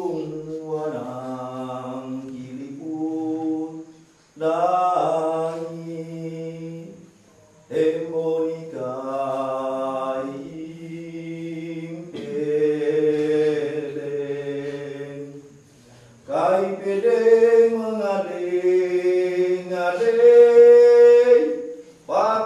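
Minahasa ritual prayer chanted aloud in long, held sung phrases with short breaks between them, praising the Supreme God, Opo Empung Wangko.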